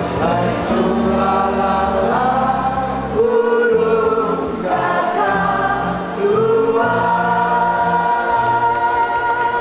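Keroncong music performed live, with several voices singing long held notes over a steady bass line.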